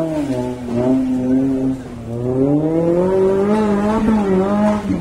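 Off-road 4x4 jeep engine revving hard under load as it climbs a steep dirt slope. The pitch sags briefly, rises for a couple of seconds, then drops near the end.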